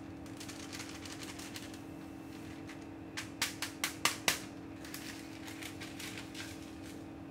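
A sheet of paper rustling and crackling as flour is poured from it into a glass mixing bowl, with a quick run of about six sharp clicks around three to four seconds in. A steady low hum runs underneath.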